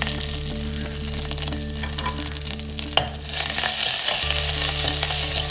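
Stone-ground thoothuvalai, pepper and cumin paste sizzling as it sautés in hot sesame oil in a clay pot, being stirred, with one sharp tap about three seconds in.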